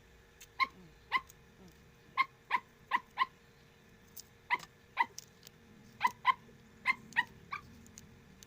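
A dog barking in short, high-pitched yips, a dozen or so at irregular spacing.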